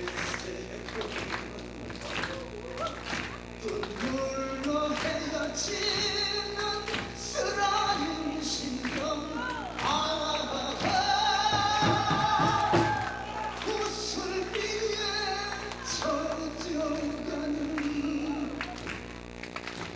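Live music: a male voice singing long, wavering held notes over frequent sharp drum strikes. The voice swells loudest about halfway through.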